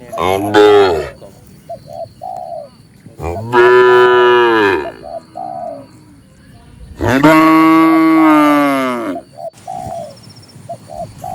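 Cattle mooing three times, each moo longer than the one before and falling in pitch at the end. Between the moos, a dove gives short cooing notes in little runs.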